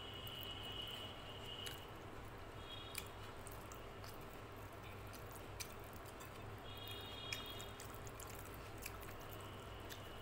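Fingers mixing and squeezing rice with dal on a plate, making faint wet squishing with a few light clicks, along with some chewing. Three short high-pitched tones come and go: near the start, about three seconds in and about seven seconds in.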